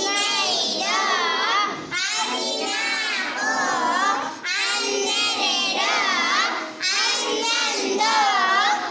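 A group of young children chanting in a sing-song chorus, with short breaks between phrases every two seconds or so.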